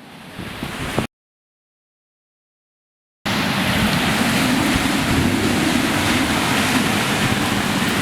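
Hurricane wind and surf: a loud, even rush of wind on the microphone with the sea behind it. It cuts to complete silence about a second in, then comes back steady after about two seconds.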